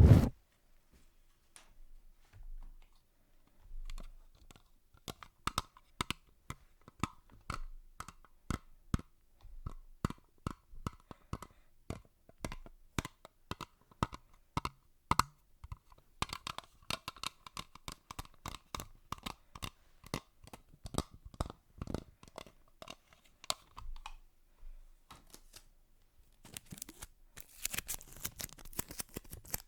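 Close-miked ASMR clicking and tapping: many quick, irregular clicks, like fingers typing or tapping on a hard object, with a faint ringing note under the taps through the middle and a short scratchy rustle near the end.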